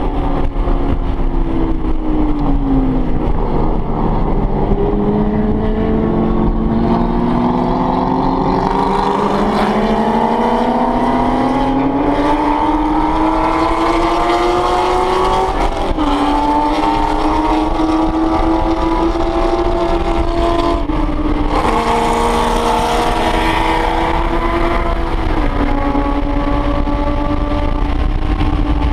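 Porsche 911 GT3 RS flat-six engine heard from inside the cabin at track speed. The pitch falls over the first few seconds, then climbs in one long pull for about twelve seconds, drops suddenly at a gear change, and settles into a steady high-speed note with brief dips.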